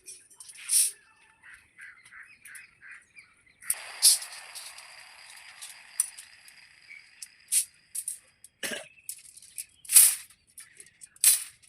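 Rebar being tied with steel binding wire: irregular sharp metallic clicks and ticks, with a rasping scrape of wire about four seconds in.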